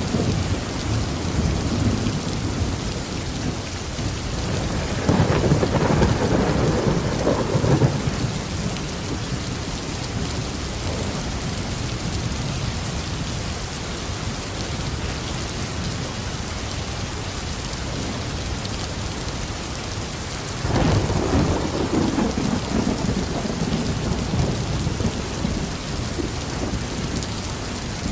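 Heavy rain falling steadily on a roof, with two rolls of thunder: one about five seconds in lasting a few seconds, and a second starting about twenty seconds in and fading away slowly.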